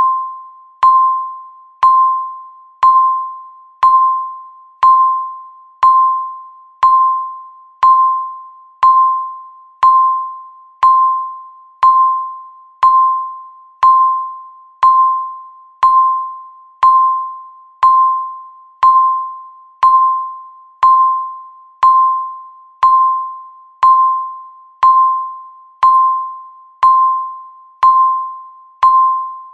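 Countdown timer beeping once a second: a single mid-pitched electronic tone that starts sharply and fades away before the next, repeating evenly about thirty times.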